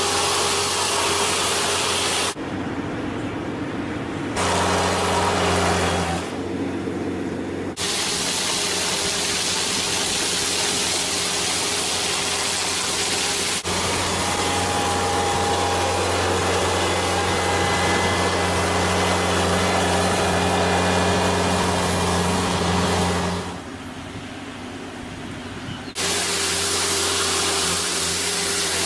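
Compact utility vehicle's engine running steadily, with the dense hiss of its rotating weed brush scrubbing paving stones. The sound changes abruptly several times.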